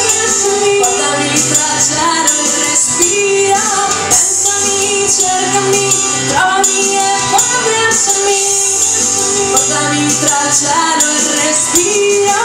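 A woman singing live with a band behind her, drums and a steady wash of cymbals under her voice.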